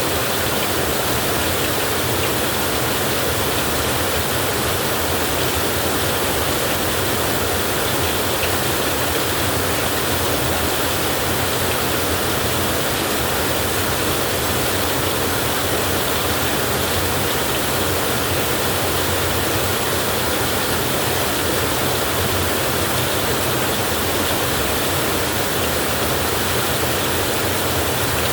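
Heavy rain falling steadily, an even wash of noise with no thunder.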